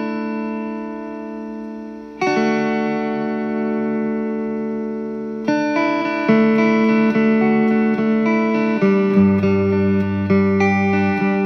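Electric guitar played through an Alien Rabbit Magic Drive tube overdrive pedal into a Fender amp at low gain. Sustained, lightly overdriven chords: the first rings and fades, new chords are struck about two, five and a half and six seconds in, and they change more quickly in the last few seconds.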